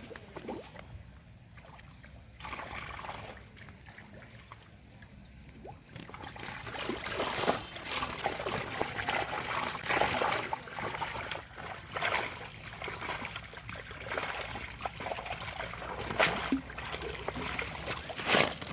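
Water splashing and trickling in irregular bursts, sparse at first and busier from about six seconds in.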